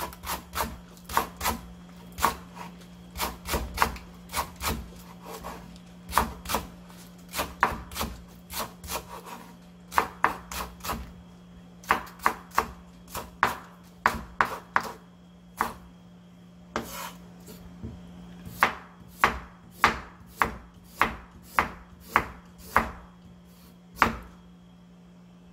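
Kitchen knife slicing green onions on a wooden cutting board: sharp knocks of the blade on the board in uneven runs, about two to three a second, over a steady low hum.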